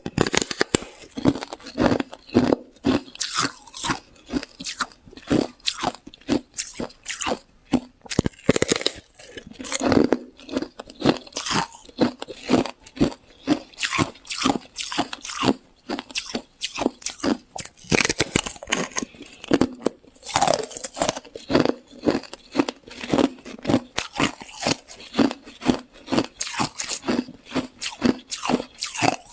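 Close-up crunching of hard, crushed ice being bitten and chewed, a rapid irregular run of sharp cracks, a few each second.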